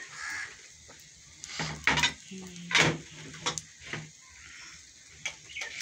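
Bread frying in hot oil in a nonstick pan with a faint sizzle, broken by a few sharp clinks of a utensil against the pan, loudest about two and three seconds in. A few short pitched calls sound in the background around the middle.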